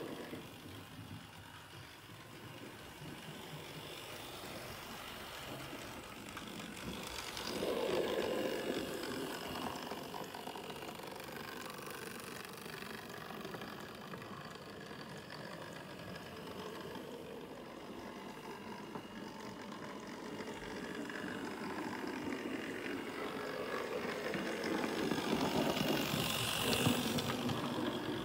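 Hornby Dublo 00 gauge model train running: the locomotive's electric motor whirring and the wheels rattling along the track. It gets louder twice as the train passes close by, about eight seconds in and again near the end.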